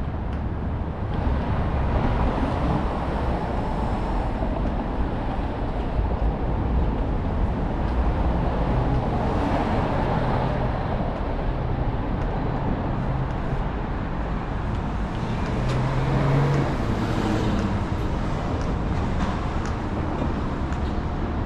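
City street traffic: a steady rumble of passing cars and other vehicles, with a low engine hum that swells from about eight seconds in and peaks around sixteen seconds as a vehicle passes close by.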